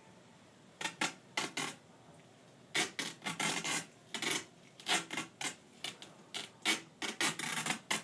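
White cloth hockey tape pulled off the roll in a series of short, rasping pulls as it is wound around the knob of a hockey stick.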